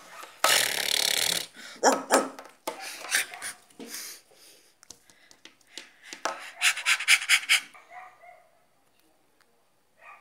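A person's voice making growling animal noises in short bursts, with a quick run of rapid growls about six to seven seconds in.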